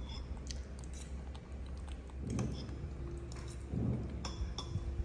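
Close, wet chewing and mouth smacking of a baby macaque eating soft food, with light clicks of metal spoons in the bowls.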